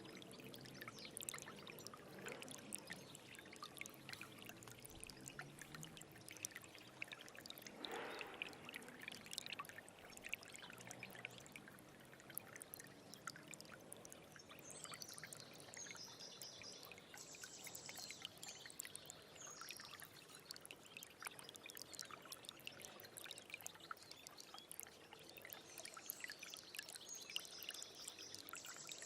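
Stream water trickling and splashing steadily. A high trilling bird call comes in about halfway through and again near the end.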